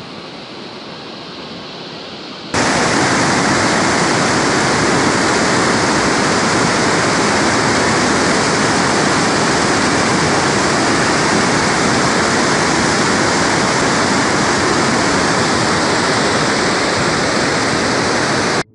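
Muddy floodwater rushing and pouring over a weir, a loud steady roar of water. It jumps suddenly louder about two and a half seconds in and cuts off abruptly at the end.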